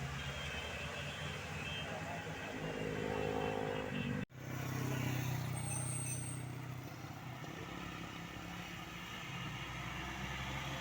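Road traffic with a heavy vehicle's engine running steadily. The sound cuts out abruptly for a split second a little past four seconds in.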